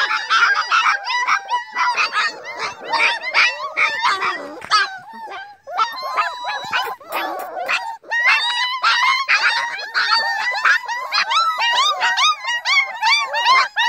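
A litter of hungry German Shepherd puppies whining and yelping all together, many high-pitched cries overlapping, with a brief lull a little past halfway.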